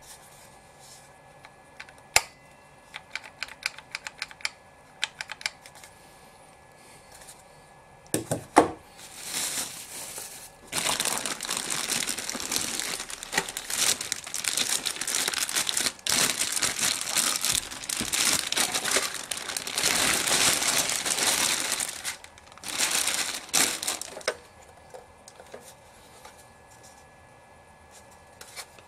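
Plastic wrapping crinkling loudly for about eleven seconds, with a short second burst after it, as a studio strobe head is pulled out of its clear plastic bag. Before it come a few light clicks and a single sharp knock of the gear being handled.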